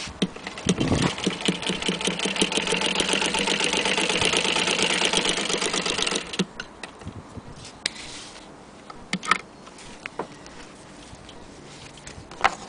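Antique Singer 15K80 hand-crank sewing machine stitching through fabric: a fast, even clatter of the needle mechanism starts about a second in and stops abruptly about five seconds later, followed by a few scattered clicks.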